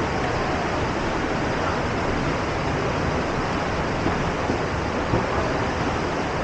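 Steady, loud rushing noise with no rhythm or distinct events.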